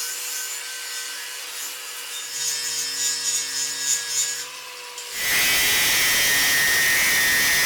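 Scraping, sawing-like work on the steel electrical conduit being fitted as the cart's wheel axle. About five seconds in it gives way to a louder, steady run of dense noise, like a power tool running.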